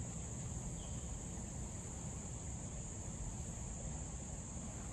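Steady, high-pitched insect chorus, unbroken throughout, over a low rumble such as wind on the microphone.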